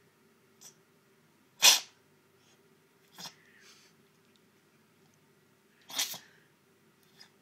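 A cat's sneezing fit: several short, sharp sneezes, the loudest about a second and a half in and another strong one near six seconds, with fainter ones between.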